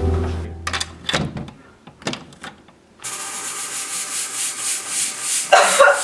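The background music fades out over a few sharp knocks. From about three seconds in, a steady rasping, rushing hiss swells, growing louder near the end.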